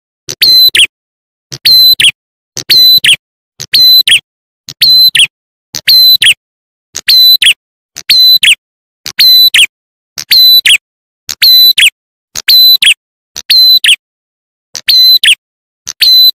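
Bird-lure recording of a prenjak atas (ciblek klawu) call played as a loop: one short, sharp, high call about once a second, each ending in a quick downward slur, identical every time.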